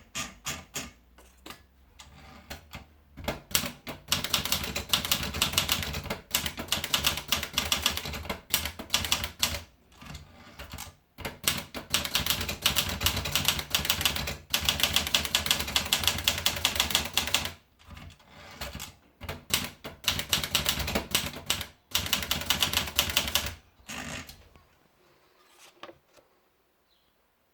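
Olivetti Dora manual portable typewriter being typed on: rapid runs of keystrokes with short pauses between them, stopping about 25 seconds in.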